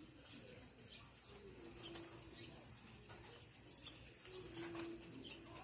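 A dove cooing faintly: two low, drawn-out coos, one about one and a half seconds in and another near the end.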